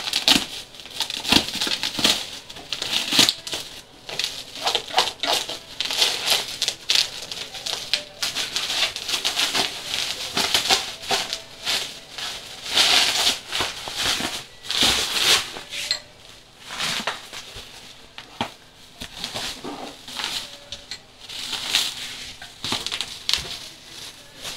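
Plastic sheeting and bubble wrap crinkling and rustling in irregular bursts as the transport packing is pulled off a juice machine.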